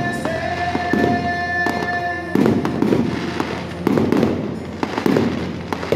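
Aerial fireworks display, shells bursting overhead in a run of repeated bangs, with a few louder booms every second or so.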